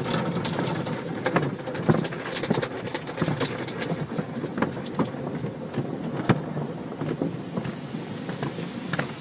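Water spray drumming and spattering on a car in a car wash, a dense steady rush with many irregular sharp ticks.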